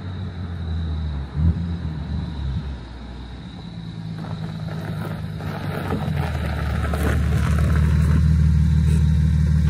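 Nissan 370Z's 3.7-litre V6 through a Flashark catback exhaust, driving toward and past: the revs rise and fall about a second in, then a deep, steady exhaust note grows louder as the car closes in and goes by.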